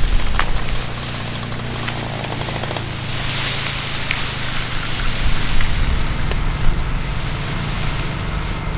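Side-by-side utility vehicle's engine running steadily while it pulls a felled log by a strap. About three seconds in, a rustling hiss of dragged leaves and brush joins it.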